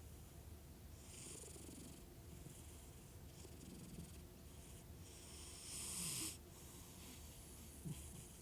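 Domestic cat asleep, snoring softly on each breath, with a low purr underneath. The breaths come every two to three seconds, and the loudest is about six seconds in.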